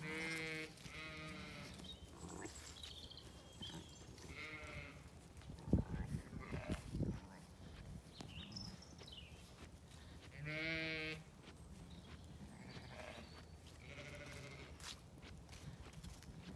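Zwartbles sheep bleating: several separate quavering calls, the clearest about ten seconds in. A short low rumble comes about six seconds in.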